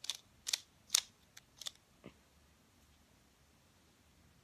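Plastic Pyraminx puzzle being twisted by hand: a quick run of about six sharp clicks over the first two seconds as its layers turn.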